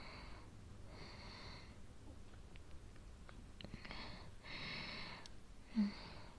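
A woman's laboured breathing during an asthma attack, with about five slow, wheezy breaths in and out. A short low sound about 6 seconds in is the loudest moment.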